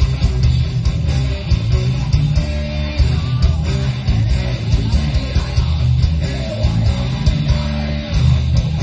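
Loud instrumental passage of a band's song, with guitars strumming over a heavy bass line and no singing.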